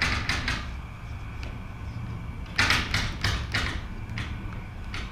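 Short hissing bursts in two quick runs of three or four from a corded handheld power tool worked along the metal door header of a box truck, over a steady low rumble.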